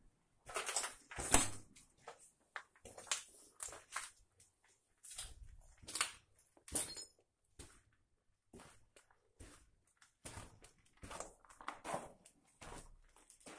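Footsteps on a gritty, debris-strewn concrete floor, irregular crunching and scuffing steps, with a louder knock about a second in.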